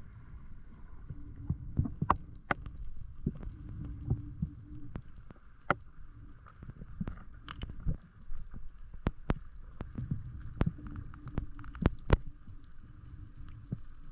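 Underwater sound picked up through a diving camera's housing: a low rumble with many irregular sharp clicks and knocks, over a faint steady hum.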